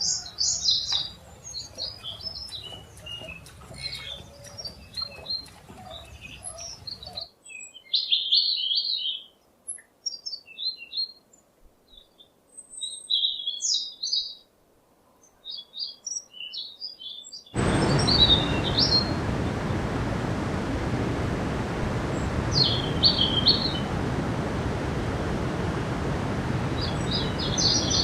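Small birds chirping and twittering in short high calls. The background changes abruptly twice: light noise at first, near silence between the calls from about a quarter of the way in, then a loud steady rushing noise from about two-thirds through, with only occasional chirps over it.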